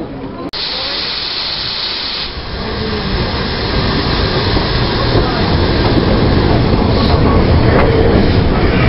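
A loud hiss of steam for about two seconds, then the rumble of Southern Railway Schools-class steam locomotive No. 30926 and its coaches drawing in along the platform, growing steadily louder as it comes alongside.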